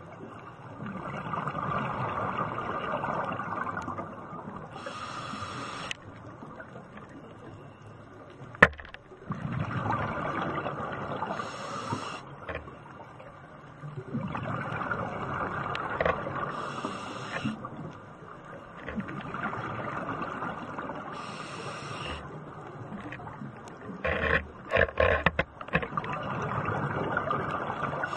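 Scuba regulator breathing heard underwater. A short hissing inhalation comes about every five seconds, each followed by a longer rush of exhaled bubbles. One sharp click sounds about eight and a half seconds in, and a short cluster of loud pops about 24 seconds in.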